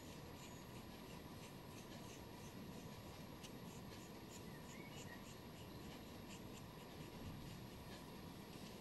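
Faint soft scratching of a small paintbrush working thick yellow paint around the inside of a ceramic teacup, in short irregular strokes over a low steady room hum.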